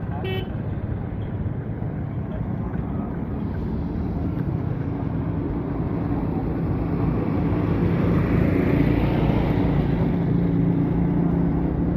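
A motor vehicle's engine running steadily with a low hum, growing louder to a peak about eight to nine seconds in as it draws near.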